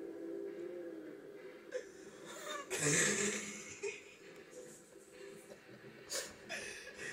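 Stifled laughter: wheezy, snorting breaths, with a louder burst of laughter about three seconds in.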